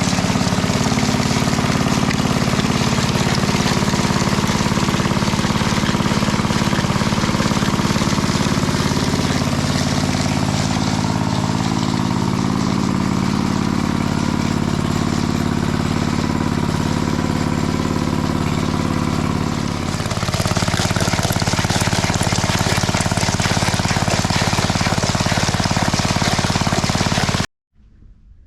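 Small gasoline engine of a walk-behind power trowel running steadily under load, smoothing the fresh concrete slab. It cuts off abruptly near the end.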